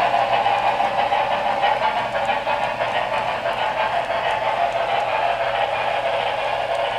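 HO scale model freight cars rolling past on the track: a steady rolling noise of small wheels on the rails.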